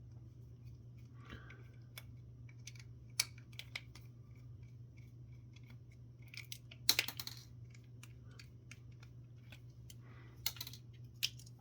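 Scattered light clicks and taps of small plastic and metal parts being handled during a teardown of a pan-tilt network camera, with a short flurry of clicks about seven seconds in. A steady low hum runs underneath.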